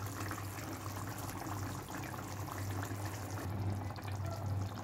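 Thick tomato and yogurt curry masala simmering in a pan, with many small bubbles popping and spluttering, over a steady low hum.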